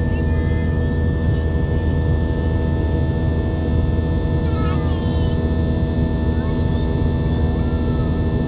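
Steady drone of an Airbus A320's jet engines and rushing air heard inside the passenger cabin, with several steady humming tones over it. About halfway through, a brief faint warbling sound rises over the drone.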